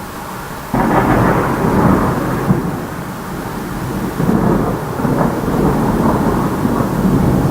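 Loud, close thunder: a sudden crack less than a second in, then a long rolling rumble.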